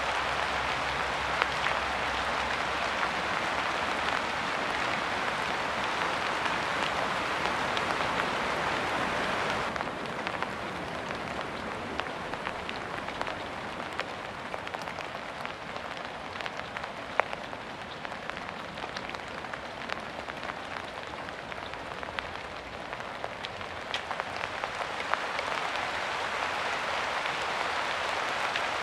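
Rain falling as a dense, even hiss. About ten seconds in it abruptly turns lighter, with individual drop hits standing out, and it thickens back into the dense hiss a few seconds before the end.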